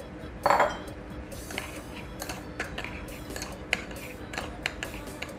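Metal spoon stirring sauce in a small glass bowl, clinking and scraping against the glass in short, irregular taps, the loudest about half a second in.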